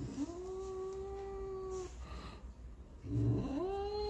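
Domestic cat meowing: one long, drawn-out, steady meow lasting nearly two seconds, then a shorter rising meow near the end.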